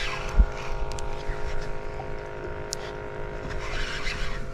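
A small motor humming steadily on the boat, holding several fixed tones, under a low irregular rumble of wind on the microphone, with a few light clicks.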